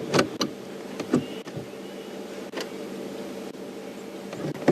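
Steady low hum of a vehicle engine idling, with a few sharp clicks and knocks in the first second or so.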